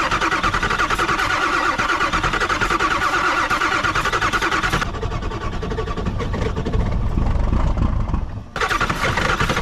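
A starter cranking a cold Ford 7.3 diesel V8 over in fast, even chugs, with the starter struggling; the owner reckons it is full of mud. About five seconds in the starter's whine drops out and the engine turns heavier and lower. Near the end the cranking breaks off for a moment and starts again.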